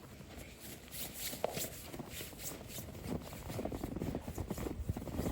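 Footsteps crunching in snow, a quick irregular run of soft crackles that gets busier after the first second.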